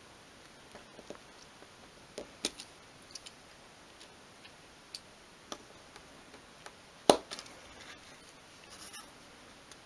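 Craft knife blade cutting into the end of a thin obeche wood slat on a cutting mat: faint scattered clicks and ticks of the blade, with one sharper click about seven seconds in.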